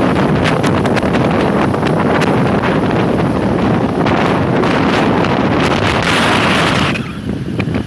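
Very strong wind buffeting the microphone: a loud, continuous noise heaviest in the low end, which eases briefly about seven seconds in.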